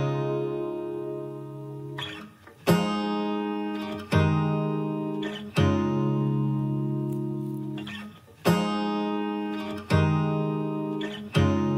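Background music: an acoustic guitar strumming slow chords, each struck once and left to ring and fade before the next.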